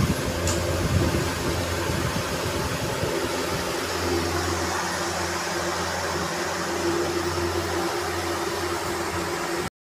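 Steady whirring hiss with a low hum from an electric fan running. It cuts off abruptly just before the end.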